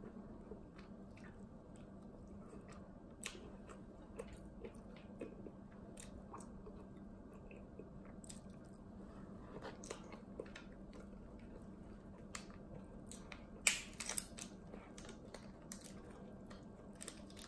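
Faint close-up eating sounds: soft chewing and scattered wet mouth clicks, with a louder crackle about fourteen seconds in, over a steady low hum.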